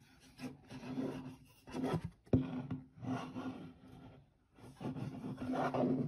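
A cardboard product box rubbed and turned in the hands close to the microphone, in irregular scraping bursts, with one sharp knock a little past two seconds in.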